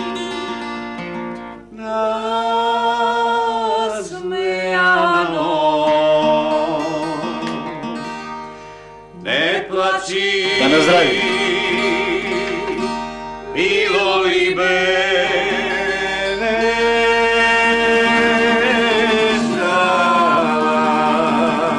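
A slow song sung in Macedonian to acoustic guitar, with long held notes that waver in pitch and brief breaks between phrases.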